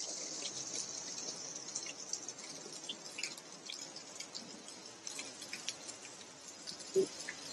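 Heavy rain falling on a street: a steady hiss with many scattered drips and small ticks. One short, dull thump about seven seconds in.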